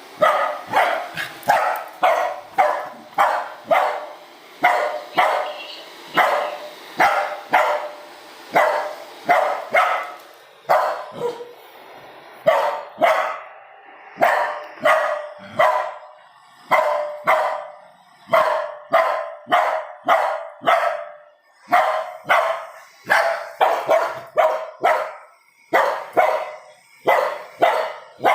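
A Lhasa Apso barking over and over, roughly two sharp barks a second, with a few short pauses in between.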